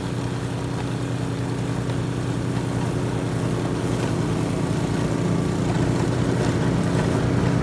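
Craftsman snowblower's engine running steadily, a little louder in the second half.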